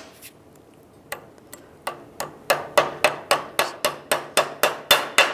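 Hammer striking a punch to drive new brass bushings into a truck door hinge: a few scattered light metal taps, then from about two seconds in a steady run of sharp strikes, about four a second.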